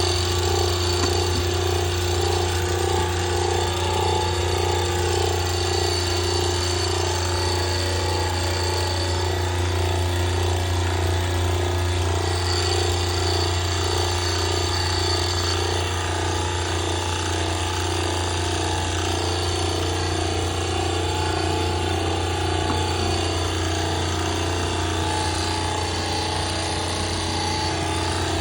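Hydraulic pier-driving rig running steadily under load, a constant low hum with a steady whine above it, as it drives a steel foundation pier into the ground.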